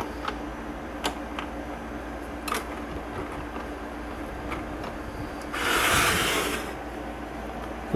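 Low steady hum and faint hiss from a 1965–66 GE C1530 hybrid tube clock radio being switched on and tuned, with a few sharp clicks from its knobs. About five and a half seconds in, a hand rubs across the plastic cabinet, a rush of noise lasting about a second.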